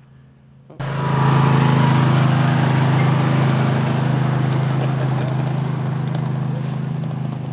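Small engine of a ride-on miniature locomotive running steadily with a low, even hum. It starts abruptly about a second in and eases off slightly near the end.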